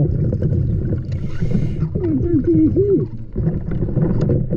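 Underwater sound of a scuba diver's breathing: a steady low bubbling rumble, a short hiss about a second in, and wavering squeaky tones around two to three seconds in.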